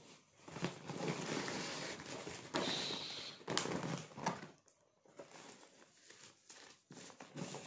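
Brown paper mailer bag rustling and crinkling as a cardboard shoebox is pulled out of it, with a few sharp clicks, for about the first four seconds. After that, fainter rustling of the cardboard lid and tissue paper as the box is opened.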